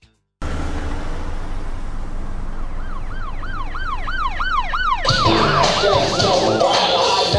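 Night city ambience: a steady traffic rumble, with an emergency-vehicle siren yelping, fast and rising and falling about three times a second. The siren comes in about three seconds in and fades near the end.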